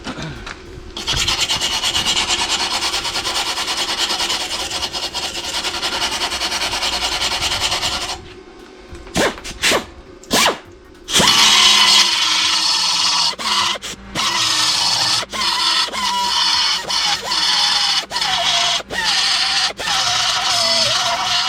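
Semi-automatic (MIG) welder crackling as it welds car body sheet metal: one long run of about seven seconds, then, after a pause, a string of short bursts of about a second each, cut off sharply, as in stitch or tack welding.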